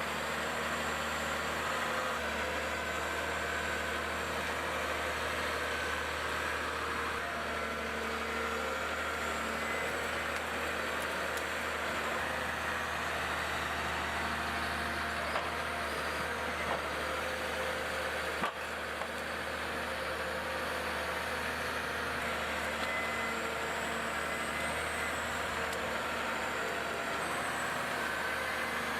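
Diesel engine of a heavy forestry machine running steadily, with a constant low hum.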